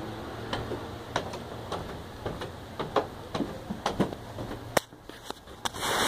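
Phone-handling noise: irregular sharp clicks and taps, about two or three a second, as fingers move over the phone while it records. They stop about five seconds in, and a rush of noise starts near the end.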